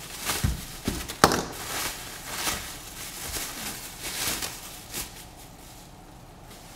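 Bubble wrap crinkling and rustling as it is pulled off a drone, with a few sharp clicks and knocks, the sharpest about a second in. It dies down after about five seconds.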